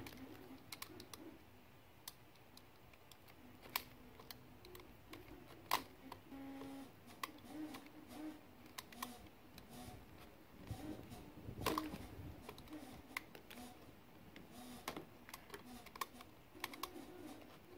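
Razor knife blade cutting and scraping through the thin welded metal tabs of a Chevy Volt battery module: faint, irregular small clicks and ticks, with a few sharper snaps about 4, 6 and 12 seconds in.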